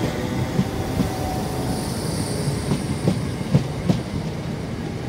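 Class 319 electric multiple unit departing and running past close by: a steady rumble, with its wheels clicking over rail joints, often in quick pairs, and a brief high wheel squeal about two seconds in.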